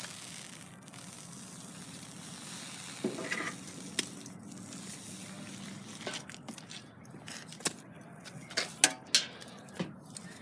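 Steady sizzling hiss from a marshmallow seared with a very hot piece of metal, with a few sharp clicks in the second half.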